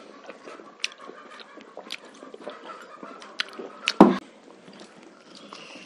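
Close-up eating sounds of people eating rice and curry by hand: scattered lip smacks and chewing clicks, with one loud, short thump about four seconds in.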